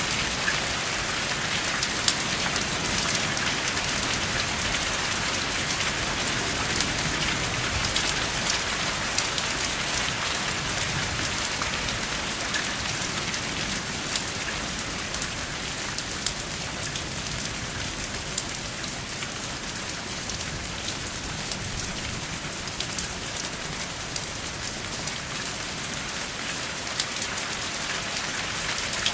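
Steady rain with no thunder: an even hiss of falling rain with many small drop ticks.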